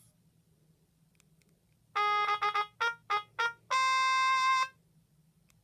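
Sony Ericsson W595 mobile phone sound effect: a short synthesized jingle of quick notes, then three short notes and a final held note about a second long, starting about two seconds in.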